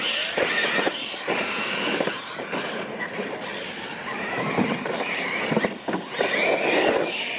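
Losi LMT electric RC monster trucks racing on dirt: brushless motors and drivetrains whining under hard acceleration, tyres scrabbling over the dirt, with a few short thumps from ramp jumps and landings.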